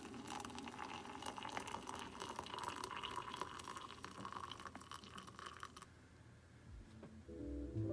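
Water poured from an electric kettle into a mug over a tea bag: a steady splashing pour that stops about six seconds in. Soft background music begins near the end.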